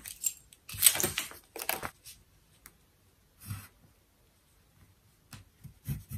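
Paper and a plastic pattern-making ruler rustling and scraping as they are handled on a table, with a few short clicks and a brief pen scratch on paper.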